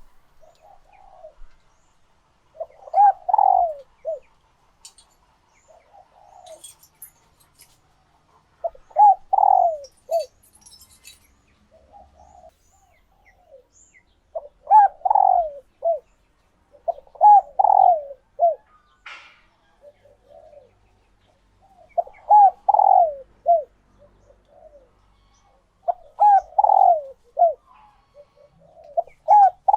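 Spotted dove hens cooing, the calls of hens in laying condition. Phrases of a few quick coos come every three to six seconds, with softer coos between them.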